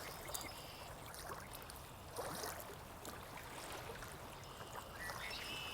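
Quiet running water from a stream recording, a steady trickling and gurgling, with a few faint high bird calls, the clearest near the end.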